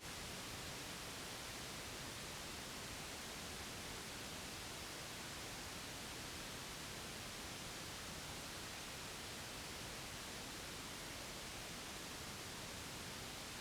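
Steady white noise: an even, unchanging hiss spread across all pitches, a continuous baby-soothing noise track.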